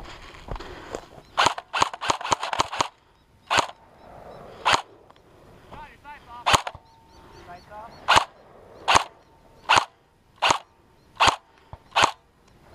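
Airsoft rifle shots: a quick string of about eight sharp cracks, then single shots roughly once a second.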